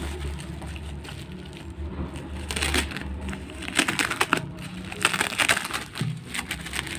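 Plastic bubble wrap crinkling and crackling as it is handled and peeled off a box. The crinkling comes in bursts, picking up and growing louder about two and a half seconds in.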